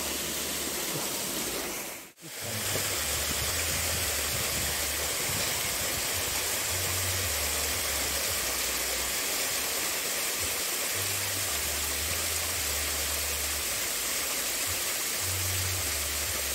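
Water spilling over a small concrete weir into a shallow stream: a steady rushing of falling water, briefly cut off about two seconds in.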